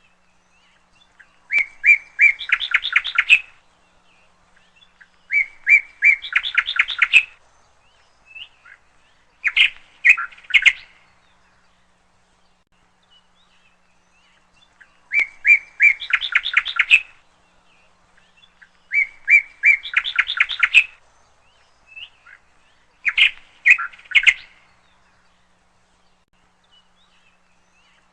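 A songbird singing the same short phrase six times, every four seconds or so: a few clear notes, then a quick rippling trill of rising and falling notes, with silence between phrases.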